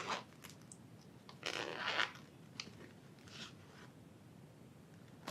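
Packaging rustling and scraping in a few short bursts as a boxed camera is unwrapped by hand, the longest burst about a second and a half in.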